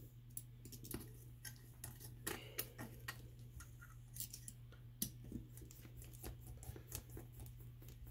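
Light, irregular clicks and ticks of a hex driver working the cylinder head screws on a Dynamite Mach 2 .19 nitro RC engine, over a steady low hum.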